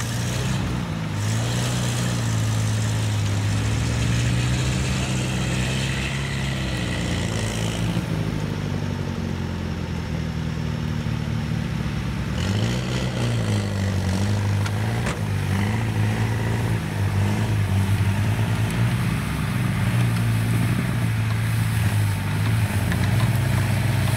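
Lada Niva engine running at low, steady revs in first gear low range as the car crawls through a grassy swamp with barely any throttle. It pulls under load without tearing the turf, the engine note dipping and recovering briefly about halfway through.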